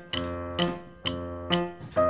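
Background instrumental music: a light melody of notes that start sharply and fade, several notes a second.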